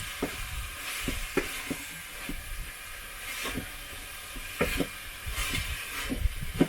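A utensil scraping and knocking irregularly against a saucepan as sukuma wiki (collard greens) is stirred into fried tomatoes, over a steady sizzling hiss of the greens cooking.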